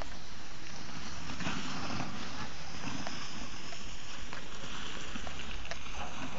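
Skis sliding and scraping over packed snow on a downhill run, with wind buffeting the microphone, a steady rushing hiss over a low rumble.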